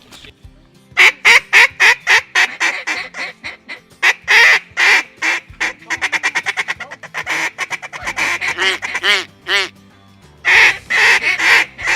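Mallard-type duck quacking in repeated runs of loud, nasal quacks, with a fast string of short quacks in the middle and a brief pause near the end.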